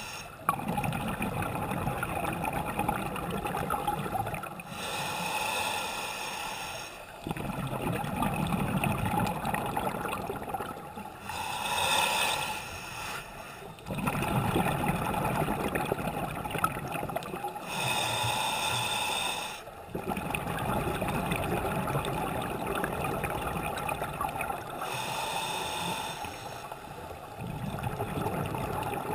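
Scuba diver breathing through a regulator underwater: a short hissing inhale about every seven seconds, four times, each followed by a longer low bubbling exhale.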